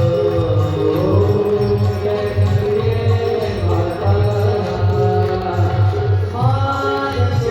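Devotional aarti music: sung voices, chant-like, over a steady low drum beat.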